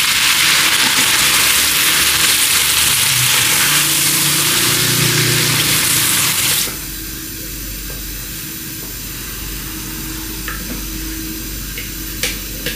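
Chicken and tomatoes frying in ghee, sizzling loudly as they are stirred together. The sizzle cuts off suddenly about two-thirds of the way through, leaving a quieter steady hum, and a few sharp taps come near the end.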